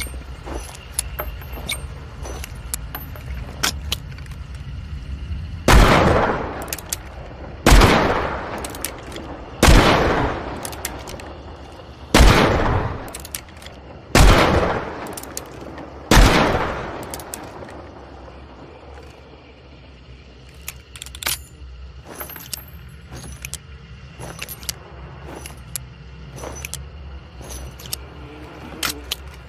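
Smith & Wesson Schofield single-action revolver fired six times, about two seconds apart, each shot echoing. Small metallic clicks from handling the gun come before and after the shots.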